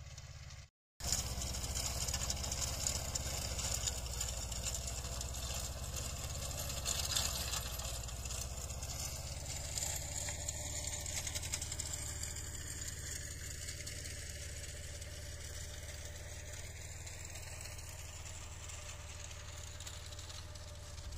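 Mahindra Jivo 305 compact tractor engine running under load while its Shaktiman reverse-forward rotavator churns dry soil, with a steady low drone under a dense clattering rattle of blades, clods and stubble. It starts after a brief gap about a second in and grows slowly fainter.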